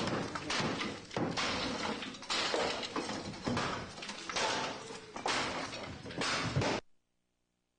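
Demolition noise: uneven surges of loud scraping and crashing of building material, which cut off suddenly about seven seconds in.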